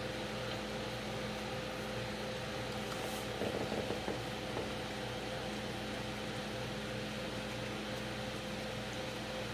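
Steady machine hum with a few fixed tones, like a fan or appliance running in the room. A brief soft rustle about three and a half seconds in.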